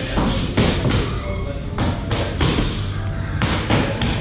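Boxing gloves landing punches during sparring: a string of sharp thuds at irregular spacing, over gym background music.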